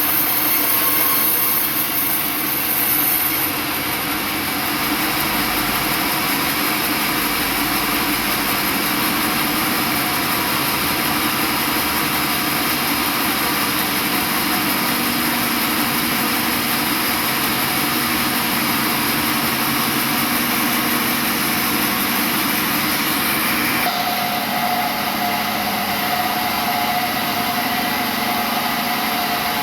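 Sawmill machinery running steadily, with a steady whine setting in near the end.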